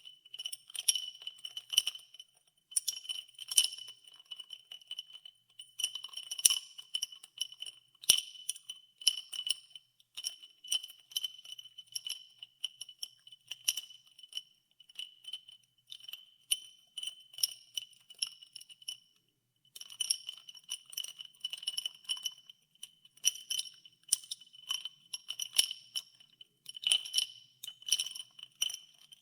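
Ice water being stirred, its ice cubes clinking irregularly against the container, each clink ringing at the same high pitch. There is a brief pause about two-thirds of the way through.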